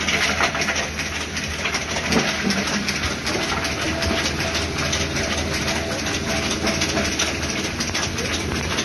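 Soil grinding machine running while it pulverises soil: a steady, dense rattle and clatter over a low machine hum.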